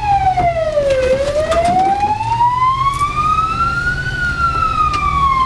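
Ambulance siren wailing: its pitch falls, climbs slowly for about three seconds, then falls again. It is heard from inside the moving ambulance's patient compartment, with engine and road rumble underneath.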